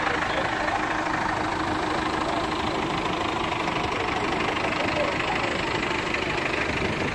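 Ford 5110 tractor's diesel engine running steadily as the tractor passes close by, towing a float trailer.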